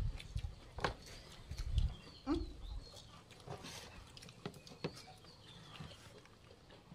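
Scattered light clicks and taps of hands picking food from plates and bowls and eating, with a few dull low thumps near two seconds in and a short vocal sound just after.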